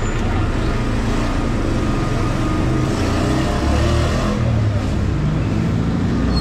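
Street traffic: a steady low rumble of vehicle engines, from a city bus right alongside and cars in the road.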